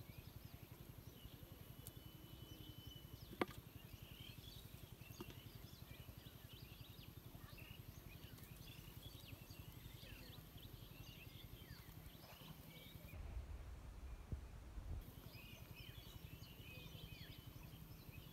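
Faint outdoor ambience of many small birds chirping. A single sharp click comes about three and a half seconds in, and a brief low rumble on the microphone follows about two-thirds of the way through.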